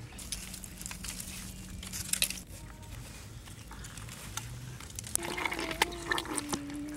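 Dry twigs and sticks crackling and snapping as they are handled, a busy run of sharp clicks and rustles that grows denser near the end.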